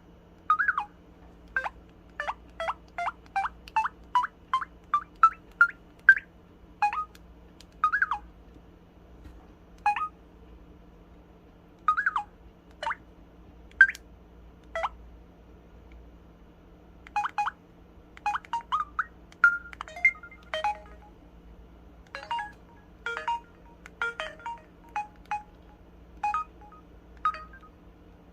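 Samsung SPH-W8350 'Magic Hole' mobile phone playing its built-in sound effects: a long run of short electronic beeps and chirps, some sliding up or down in pitch, with short pauses between them.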